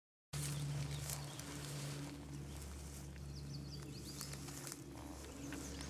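A small songbird singing a quick run of short, high chirps about halfway through and again near the end, over a steady low hum and light rustling.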